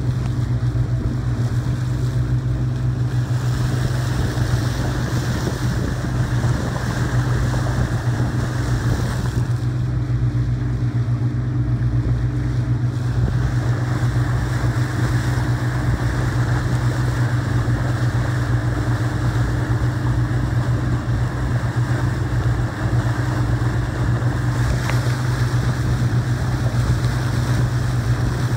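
Small motorboat's engine running steadily, a low constant drone, over a rushing hiss of water moving past the hull.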